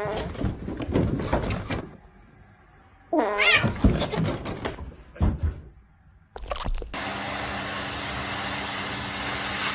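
Domestic cat meowing twice, once at the start and again about three seconds in, with knocks and clatter around the calls. Near the end a steady hiss takes over.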